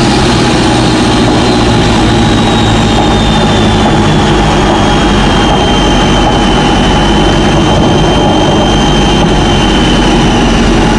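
Toyota Innova's 1KD turbodiesel engine running with loud road noise inside the cabin at highway speed as the car slowly eases off. A thin high whine falls gradually in pitch.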